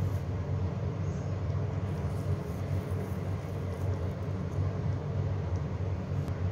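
Steady low rumble of kitchen background noise, with no distinct clatter or bubbling standing out.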